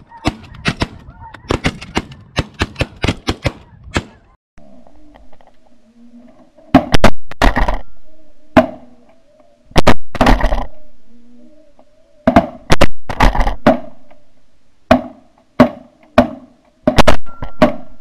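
Shotguns firing at a passing flock of snow geese: a rapid volley of about a dozen reports from several guns in the first four seconds, then single loud blasts every second or few that ring out and fade. Goose calls sound between the shots.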